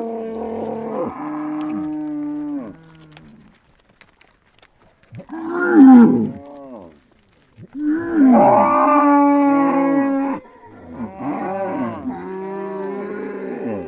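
A herd of cows mooing: a string of long, drawn-out calls from several animals at different pitches, some overlapping. A pause of about two seconds follows the first calls, and the loudest call comes about six seconds in.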